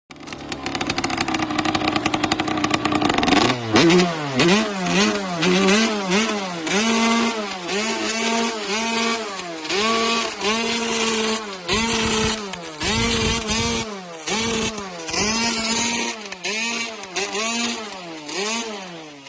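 A 49cc two-stroke motorbike engine idles for about three seconds, then is revved over and over in quick blips, about fifteen times. Some revs are held briefly at the top before dropping back.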